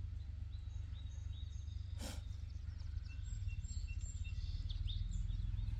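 Outdoor ambience: a steady low rumble, with faint bird calls between about three and five seconds in and a single soft knock about two seconds in.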